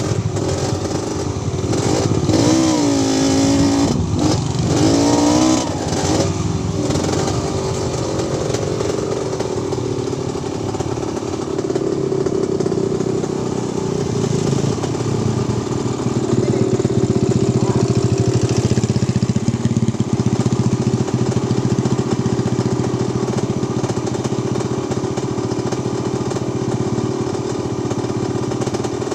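Small motorcycle engine running, its pitch wavering up and down for the first several seconds, then holding a steady drone.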